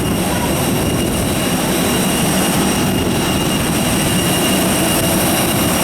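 Steady jet turbine whine over a constant rumble from a parked Cebu Pacific Airbus A320, growing slightly louder about two seconds in.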